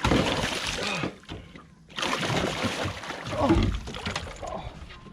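A hooked barramundi thrashing and splashing at the water's surface beside the boat while it is being landed, in two bouts: a short one at the start and a longer one from about two seconds in.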